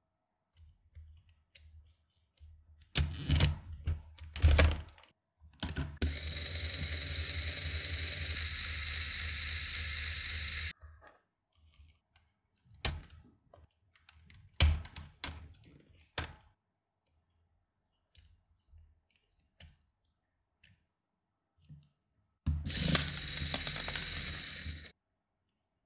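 Lego Technic electric motor spinning a minifigure at high speed through 24-tooth to 8-tooth gearing, a steady whine that runs for about five seconds and again for about two and a half seconds near the end. Between the runs there are clicks and clacks of plastic Lego parts being handled and fitted.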